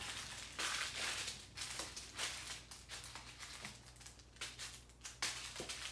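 Small plastic zip bags of diamond painting drills crinkling and rustling as they are handled, with light taps as they are set down on a wooden table, in irregular bursts. A faint steady hum runs underneath.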